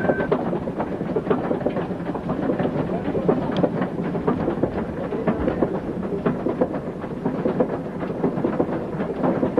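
Continuous rattling rumble of longwall coal-face machinery, dense with small irregular knocks and clatters.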